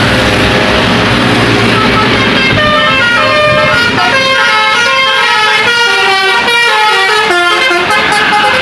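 A bus's telolet musical horn playing a fast tune of short notes that step up and down in pitch. It starts about two and a half seconds in, over the rumble of the passing vehicle's engine and tyres, and stops near the end.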